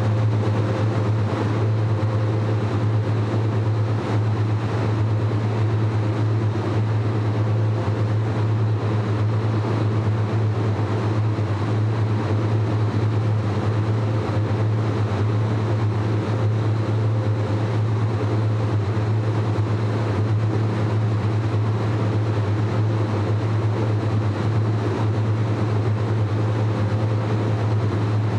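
Cold-lab refrigeration and ventilation machinery running steadily: a strong, constant low hum with an even hiss of moving air over it.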